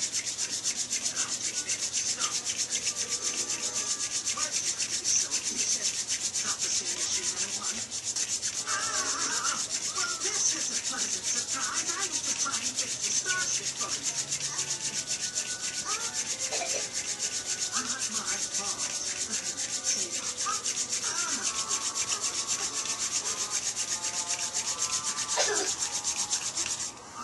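Hand-drill friction: a still-green white yarrow spindle spun between the palms, grinding in its socket on a white pine root hearth with a continuous rubbing sound and a few short squeaks. The green spindle is being spun to force-dry it. The rubbing stops just before the end.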